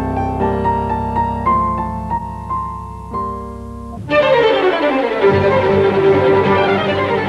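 Background music: sustained piano and low string notes, fading somewhat, then a fuller bowed-string passage with violin comes in sharply about four seconds in.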